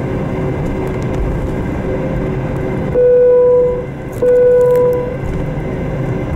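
Steady cabin rumble of an Airbus A321-231 taxiing on its IAE V2500 engines at low power, heard from a window seat over the wing. About three seconds in, two loud steady tones of just under a second each sound one after the other, with a short gap between them.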